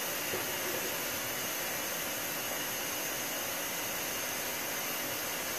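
A steady, even rushing hiss.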